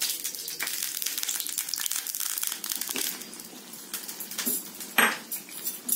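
Lightly heated ghee poured over cooked rava kichadi in a kadai, crackling and sizzling as it hits the hot food, dying down after about three seconds, with a few sharp knocks in the second half.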